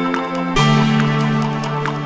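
Background music: a mellow ambient electronic track with sustained chords over a light, steady percussive beat, the chord and bass shifting about half a second in.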